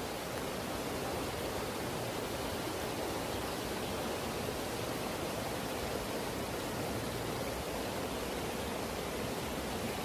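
Steady rushing of flowing river water, an even hiss with no change in level.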